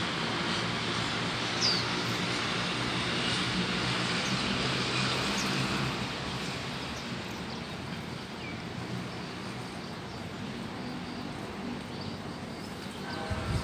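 Steady drone of a passing engine, louder for the first six seconds and then fading off, with a few short, high bird chirps heard over it.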